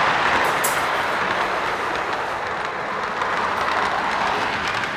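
Lionel O gauge model train running along its track, a steady running noise of wheels and motor, heard close up from a camera riding on one of its cars.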